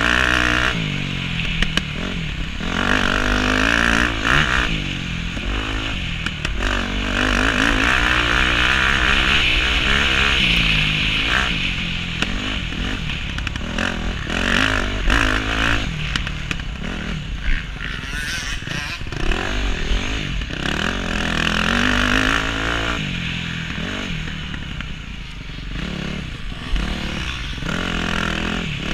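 KTM motocross bike's engine revving hard and easing off again and again as the bike accelerates down the straights and backs off into the corners. The pitch rises and falls repeatedly. Rushing wind noise from the riding speed runs underneath.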